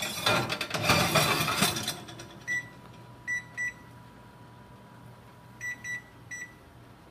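A metal baking sheet scraping and rattling as it slides onto a wall oven's rack, then the oven's control panel beeping as its keys are pressed: six short high beeps in two groups of three.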